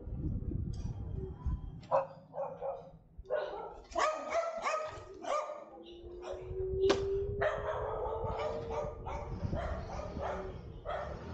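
Dogs barking repeatedly in short irregular volleys over a low steady rumble of a car driving.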